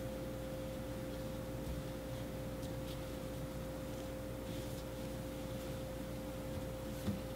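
A steady electrical hum: one unbroken mid-pitched tone over low room noise. A few faint rubbing sounds as a cloth wipes a sink faucet, and a soft knock near the end.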